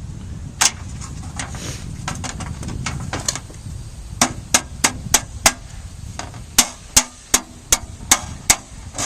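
Hammer blows driving fasteners through metal chimney flashing: a single strike about half a second in, then two runs of quick strikes, about three a second, from about four seconds in.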